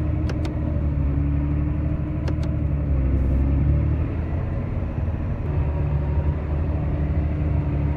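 Tractor engine running steadily while pulling a wagon of shelled corn, with a few light clicks or rattles in the first few seconds.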